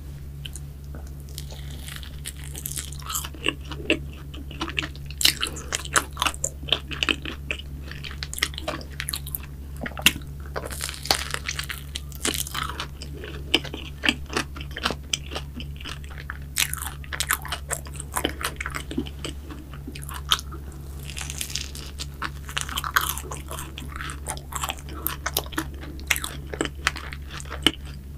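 Biting and chewing a croffle (croissant waffle) with a chocolate-crunch topping: crisp crackling crunches of the pastry and topping, coming in dense clusters with short pauses. A steady low hum runs underneath.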